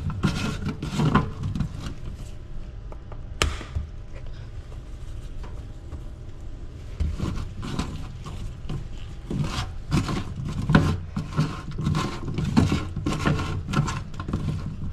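Gloved hands rubbing and kneading boiled crown conch meat with salt in a plastic colander set in a stainless steel sink, giving an irregular scraping and rubbing. There is a sharp click about three and a half seconds in. The strokes grow busier from about halfway.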